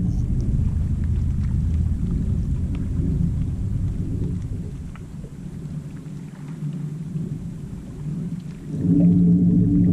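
Low rumble of wind on the microphone over the steady hum of a bass boat's electric trolling motor. The hum fades through the middle and comes back on abruptly about nine seconds in.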